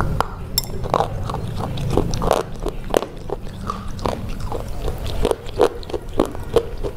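Close-up eating sounds: a bite into a chocolate bar with a sharp snap near the start, then chewing with a string of crisp, separate crunching clicks.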